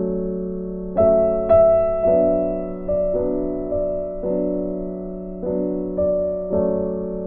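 Slow background piano music: notes and chords struck one after another and left to ring and fade.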